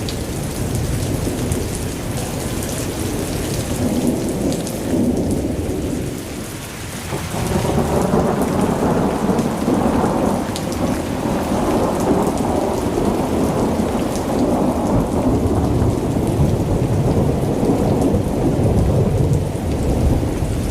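Heavy rain falling steadily with low rolling thunder. It eases briefly about seven seconds in, then grows louder again.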